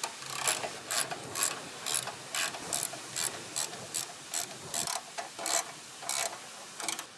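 Socket ratchet wrench clicking as it backs out the 10 mm engine shroud bolts: a short run of pawl clicks on each back-swing of the handle, about two a second.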